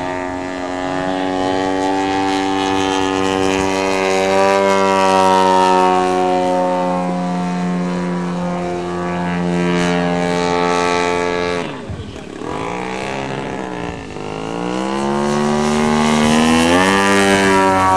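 Giant-scale radio-control Cub model aircraft engine running at high power, a steady, loud note. About twelve seconds in the note drops in pitch and volume and wavers, then climbs back up to full power about fifteen seconds in.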